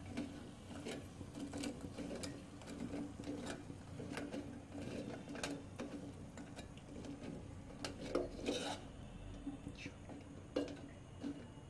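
Metal spoon clinking and scraping against an aluminium pot while turning jalebi in sugar syrup, in light irregular taps, with a faint steady hum underneath.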